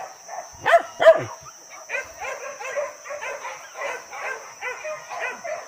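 Hunting dogs barking and yelping on a boar hunt: two sharp loud barks about a second in, then a rapid, unbroken run of yelps from the pack.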